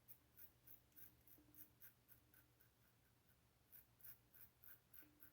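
Faint, short scraping strokes of an Above the Tie R1 safety razor cutting stubble, about three a second, pausing for about a second midway.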